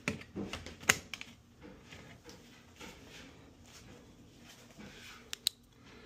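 Plastic clicks and handling noise from a Lux wall thermostat: a sharp snap about a second in as it is pressed onto its wall plate, scattered lighter clicks and rustling, then two quick clicks near the end as its buttons are pressed.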